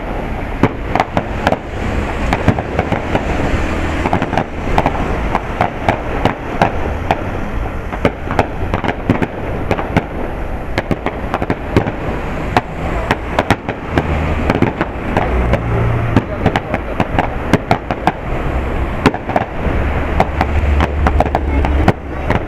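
Aerial fireworks going off in a dense, continuous barrage: rapid bangs and crackling, many reports a second, over a low rumble.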